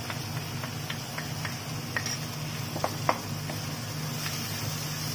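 Wooden spatula stirring a thick spice paste in a non-stick wok, with scattered scrapes and taps against the pan over a steady low hum.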